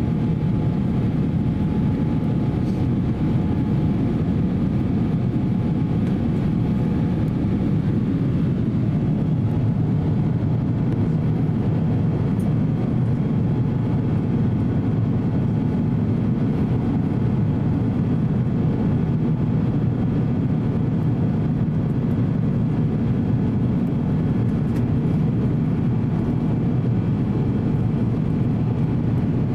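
Steady low cabin noise inside an Airbus A350-900 airliner in flight, heard from a window seat beside the wing-mounted Rolls-Royce Trent XWB turbofan: engine and airflow noise with no change in level.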